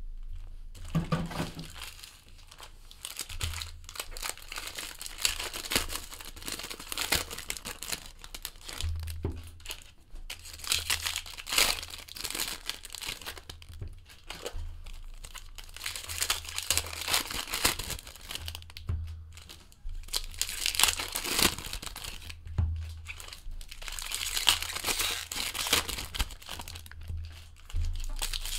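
Foil wrappers of jumbo trading-card packs crinkling and tearing open in irregular bursts, with the cards being handled and stacked in between.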